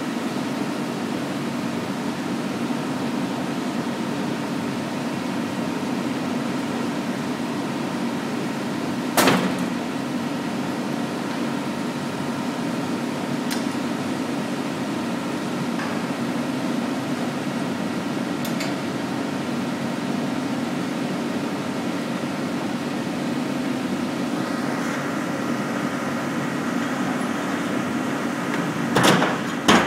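Stone-cutting saw running steadily through a stack of red travertine slabs, a constant machine hum with a faint high whine. A sharp knock comes about nine seconds in, and two louder knocks near the end.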